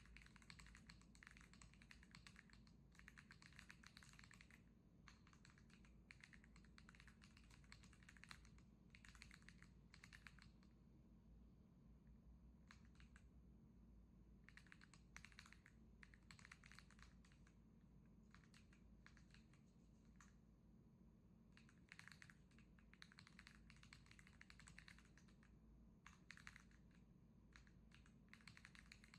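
AULA F99 mechanical keyboard being typed on: faint runs of rapid keystrokes in several bursts, with short pauses between them.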